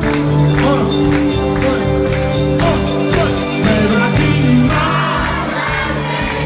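Live pop-rock band playing, with a singer's voice over held keyboard and guitar chords and drums keeping a steady beat.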